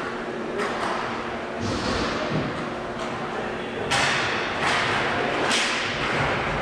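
A series of about five sharp thuds and smacks ringing out in a large echoing hall, spaced unevenly over several seconds.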